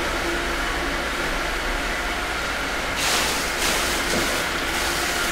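Steady hum of a running motor, with a brief hiss-like rush of noise about three seconds in.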